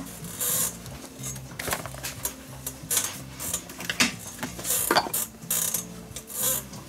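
Leather glove lace rustling and scraping as it is drawn through the lacing holes, with sharp clicks and clinks of metal hand tools being handled, the sharpest about five seconds in. Quiet background music runs underneath.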